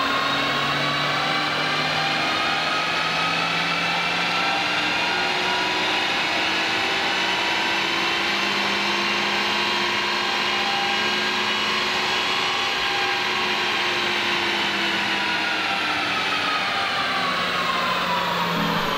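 2022 Honda Civic Si's 1.5-litre turbocharged four-cylinder at full throttle on a chassis dyno, fitted with a Spoon Sports drop-in intake filter and running a Hondata FlashPro CARB tune. The engine note climbs steadily in pitch for about ten seconds, holds near the top, then falls away over the last few seconds as the pull ends.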